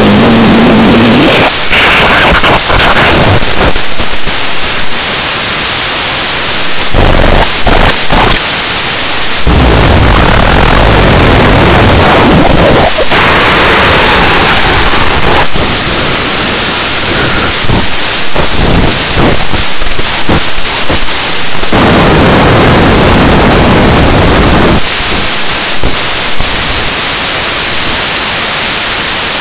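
Loud, harsh white-noise static filling the whole range, its texture and level shifting in patches every few seconds. A low droning tone fades out about a second in.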